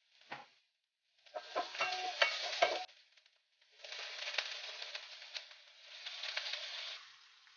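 Food sizzling in a hot frying pan, with the knocks and scrapes of a wooden spoon stirring it in the first part, then a steadier sizzle; the sound breaks off into short dead silences between pieces.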